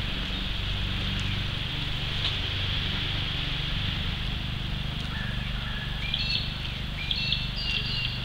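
Steady rushing of a river flowing down toward rapids, with short, high, repeated chirping calls from a bird joining from about five seconds in.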